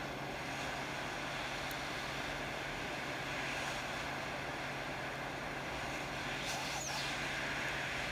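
Hot air rework station blowing a steady rush of air through a large nozzle onto a phone logic board's metal shield, at 430 °C with airflow set to 40, while the shield's solder melts. A low steady hum runs under the hiss.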